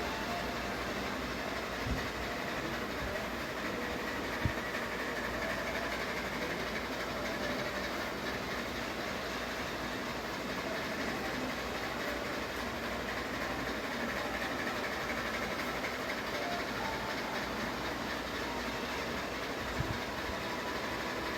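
Ceiling fan running at a steady speed: a constant, even noise, with three faint clicks.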